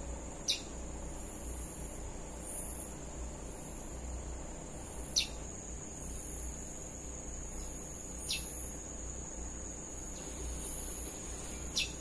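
Steady high-pitched insect buzzing with fainter repeated chirps above it, cut by four short, sharp descending whistled bird notes a few seconds apart.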